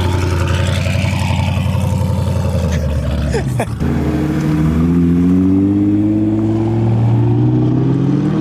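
Car engine under hard acceleration: a steady high-revving drone, a sudden drop in pitch about three and a half seconds in as it shifts gear, then the engine note climbing steadily again.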